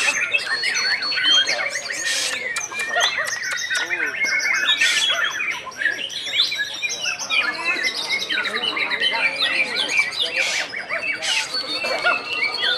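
White-rumped shama (murai batu) singing a fast, varied, unbroken stream of whistles, trills and rapid chattering notes.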